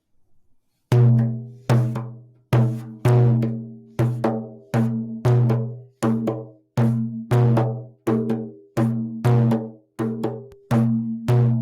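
A low-pitched hand drum struck in a slow, steady beat, about sixteen strokes starting about a second in, each one ringing with a clear low tone and dying away before the next.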